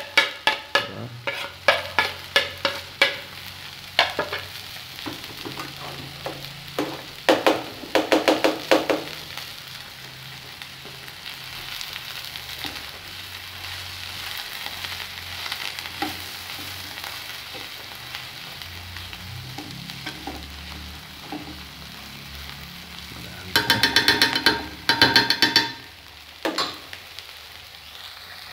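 Chopped onion, chile, garlic and cilantro sizzling in a little oil in an enamel frying pan. Rapid clicking and scraping of utensils against the pan and plate come in the first nine seconds or so, as cilantro is scraped in with a knife, and again in a short burst near the end as it is stirred.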